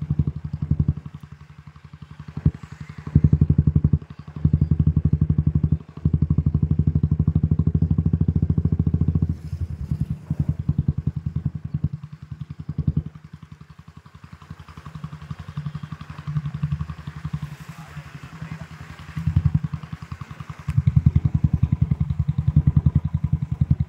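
Motorcycle engine running close by, with a fast, even pulsing beat. It is loud at first with brief dips, falls back to a quieter rumble for about ten seconds in the middle, then comes up loud again near the end.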